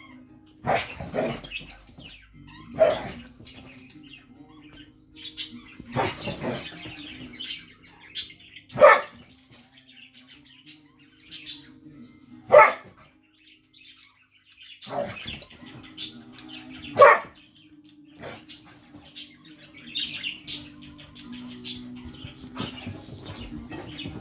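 Dogs barking at each other in play fighting: single sharp barks every few seconds, with a handful much louder than the rest.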